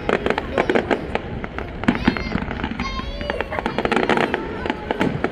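Aerial fireworks display: a rapid, continuous run of bangs and crackles, many shells bursting in quick succession.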